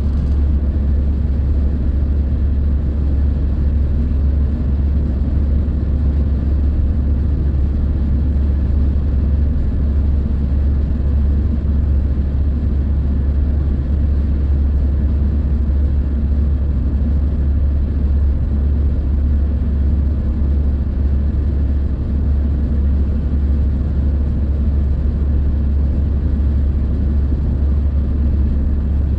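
Steady road noise from inside a car cruising on a motorway: a constant low rumble of tyres and engine with an even hiss above it.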